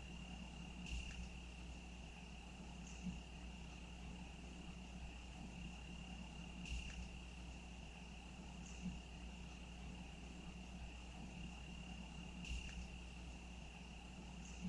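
Insects trilling in one steady high note, faint. A soft click comes back regularly about every six seconds, with fainter ticks in between.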